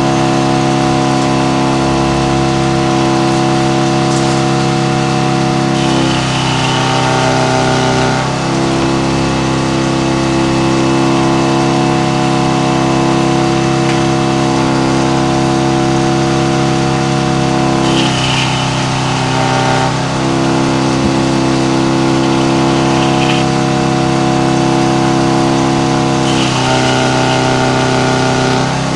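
Engine powering a Frick No. 00 circle sawmill, running steadily. Three times, about two seconds each (around 6, 18 and 27 seconds in), the sound shifts and a higher whine joins it.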